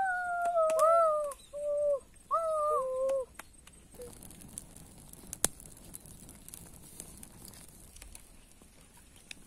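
A child's voice hooting in a few short sung notes over the first three seconds, then faint crackling of dry grass and sticks catching fire, with scattered ticks and pops.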